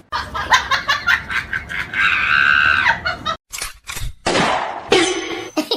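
A high-pitched scream lasting about a second, starting about two seconds in, among short knocks and clatter, with abrupt cuts.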